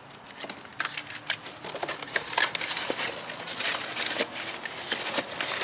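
Fog-light kit parts and packaging being handled: irregular rustling, crinkling and small clicks, busier from about a second in.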